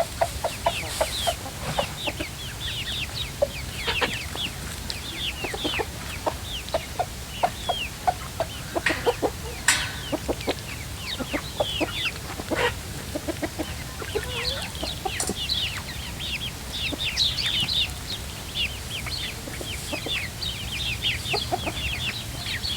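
Chickens clucking and chirping, with many short, high, falling chirps throughout, busier near the end. There are a few sharp knocks in between.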